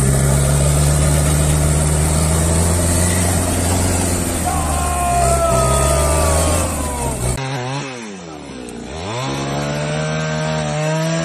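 An off-road pickup's engine running steadily. About seven seconds in the sound changes abruptly to a chainsaw, which drops toward idle and then revs back up to a steady high pitch.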